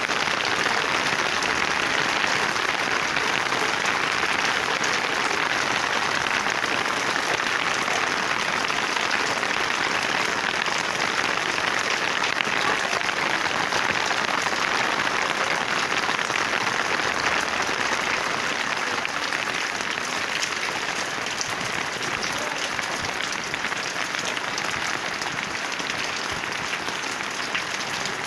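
Rain falling steadily on plants, a dense, even hiss of drops without let-up.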